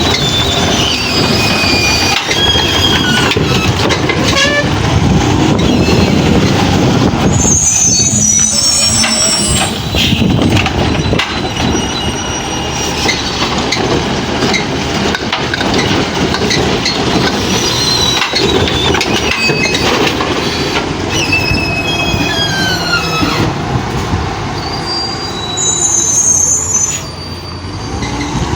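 Garbage truck working close by: its engine runs under repeated metallic squeals that glide down in pitch, with two brief very high squeals about a third of the way in and near the end.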